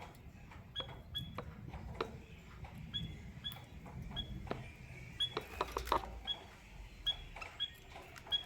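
A caged canary and white-headed munia pair giving short, high, repeated chirps at uneven intervals, about fourteen in all, mixed with light clicks and taps.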